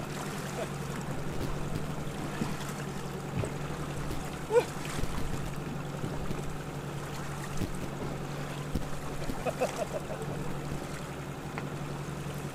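A fishing boat's outboard engine running steadily at trolling speed, with wind and water noise over it. A sharp knock about four and a half seconds in and a few lighter knocks from gear being handled in the boat.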